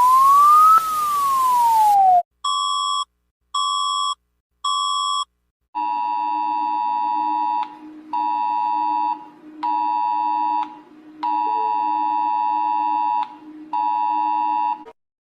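Emergency alert alarm sounds: a siren tone sweeping up and then down over a hiss, cutting off about two seconds in, then three short beeps about a second apart. After that, a harsh two-tone attention signal with a low hum under it sounds in five blasts of one to two seconds each.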